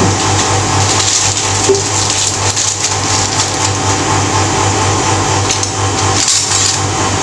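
Steady hissing rush of a gas stove burner and a pot of water on the boil, over a low steady hum.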